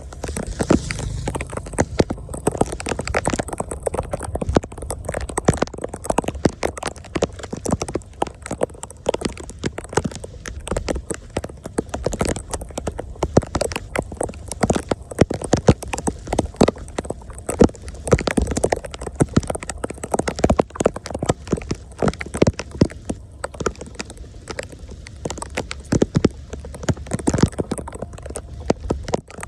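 Dense, irregular clatter of sharp knocks and scrapes, several a second, from clearing debris out of a clogged street drain.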